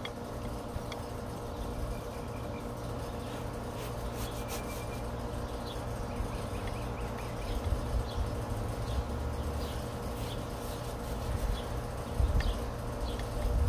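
Outdoor background of a steady low mechanical hum, like an engine or machine running, with wind rumbling on the microphone and growing louder near the end. Short high chirps and scratches come and go over it.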